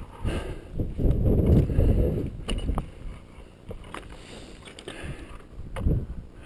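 Wind gusting over an action camera's microphone, a low rumble strongest about a second in, with scattered sharp knocks and scuffs from scrambling over loose rock.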